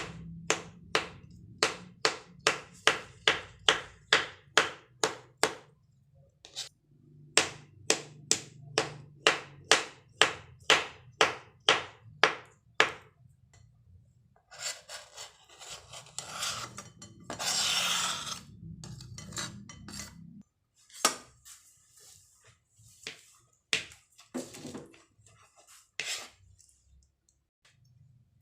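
Knife chopping on a cutting board in two runs of even strokes, about three a second, then a few seconds of rustling and scattered taps.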